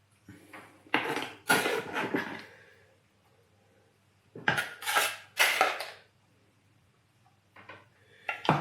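A kitchen utensil scraping and clinking against a dish in several short goes, separated by pauses, as red salsa is spooned and spread over the layers.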